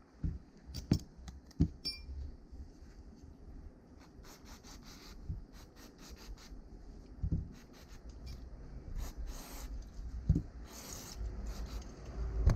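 Rubbing and scraping as bicycle headset parts are cleaned of debris by hand, with a few light knocks and a brief metallic ring about two seconds in.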